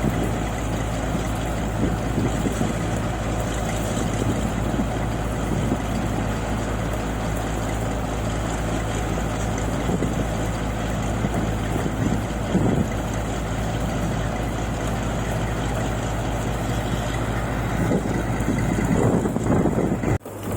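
Engine of a paddy-unloading machine running steadily with a constant low hum, cutting out briefly near the end.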